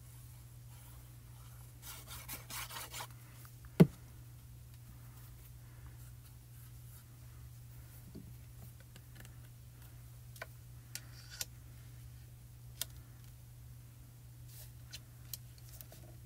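Quiet handling of cardstock at a craft desk: soft paper rustles and rubbing, one sharp tap about four seconds in, and a few light clicks, over a steady low hum.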